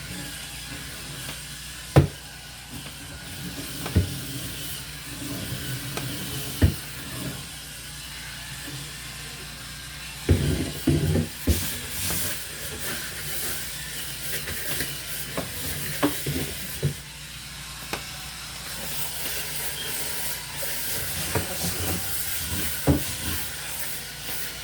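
Electric scrub brush running and scrubbing the inside of a refrigerator: a steady motor hum and bristle hiss, with scattered sharp knocks as it bumps the surfaces.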